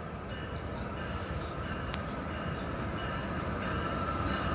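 Empty CSX rock train led by a GE ES44AH diesel locomotive rumbling as it approaches, growing steadily louder, with a faint steady high tone over the rumble.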